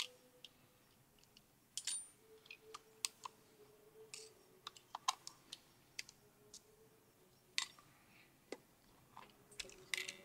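Small metal tools and fingers clicking and tapping on the screws and turret parts of a Bolex cine camera being taken apart: faint, irregular clicks, a little louder about two seconds in and again near the end.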